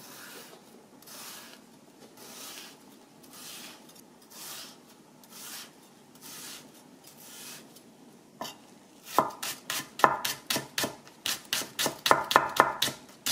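Knife cutting a green onion on an end-grain wooden cutting board: soft, slow strokes about once a second as the stalk is slit lengthwise, then from about nine seconds in, quick sharp chops, roughly four a second, as it is minced.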